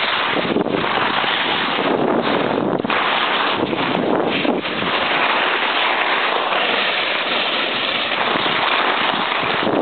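Steady rushing noise of skiing downhill: skis sliding and scraping over packed snow, with air rushing over the microphone.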